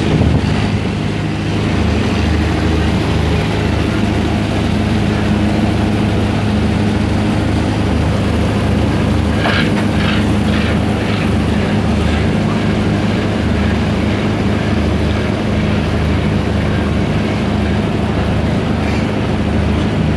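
Fishing boat's engine running with a steady low drone as the vessel departs, with a few brief sharper sounds about halfway through.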